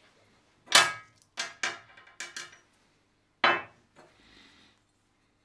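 Pieces of cut steel (square tube, pipe, rod and a bolt) set down one at a time on a metal table top: about six sharp metallic clanks, the loudest about a second in and another near the middle, then a faint brief scrape.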